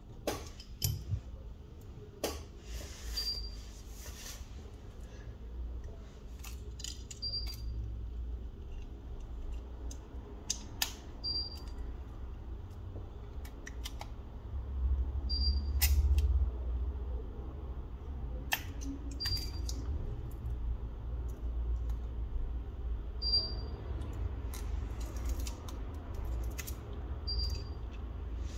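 Scattered small clicks and taps of hand tools working on a smartphone's parts during disassembly, a few with a brief high metallic ring, over a steady low hum.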